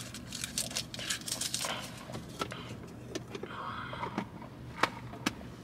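Scattered light clicks and knocks with brief rustles, from drink cups being handled, over a faint low steady hum.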